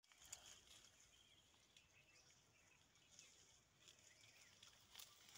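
Near silence: faint outdoor ambience with a few soft, high chirps and light ticks.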